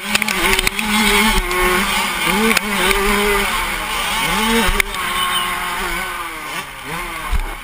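Suzuki RM85 two-stroke motocross bike at race pace, heard from the rider's helmet: the engine revs up and drops off several times as it works through the gears, with other dirt bikes close by and a few sharp knocks.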